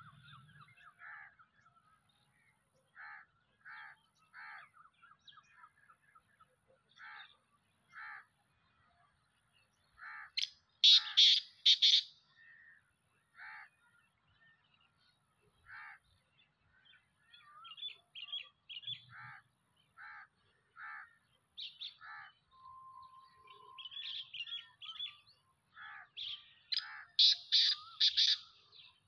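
Black francolin calling: a loud, harsh phrase of three or four notes, twice, near the middle and near the end. Shorter, softer bird notes repeat about once a second in between.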